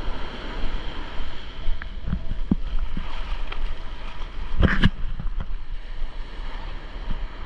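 Ocean surf washing onto the beach while wind buffets the microphone with a low rumble. A short, louder sound stands out a little past halfway.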